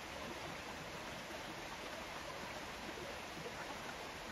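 Steady rushing of a stream flowing over rocks.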